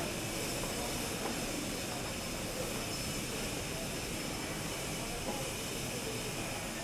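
Steady outdoor background noise, an even hiss and rumble with no distinct event.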